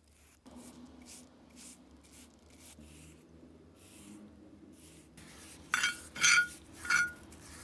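Paintbrush bristles scrubbing a coating onto a cast-iron vise body, soft scratchy strokes about two a second. Near the end come three sharp ringing metal clinks, the loudest sounds.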